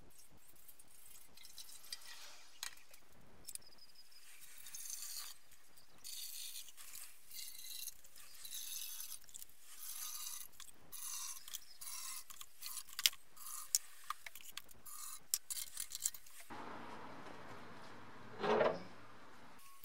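Liquid pouring from plastic bottles into the filler of a steel motorcycle fuel tank: rust remover, then water to dilute it. The pouring is a hissy trickle, followed by sharp clicks of bottles and caps being handled. Near the end there is a short, louder sound that rises in pitch.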